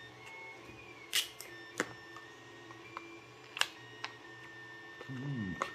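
Sharp clicks and snaps of a clear plastic parts case being handled and opened, a few isolated clicks seconds apart, over a faint steady hum.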